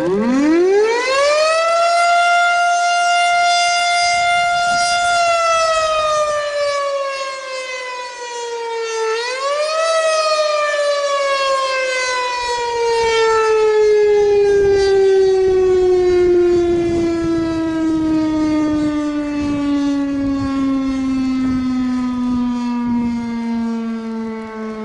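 Federal Signal STH-10A fire-department siren on test. It winds up quickly to a steady wail and holds it for a few seconds, then starts to wind down. About nine seconds in it spins briefly back up, then winds down slowly in one long falling tone.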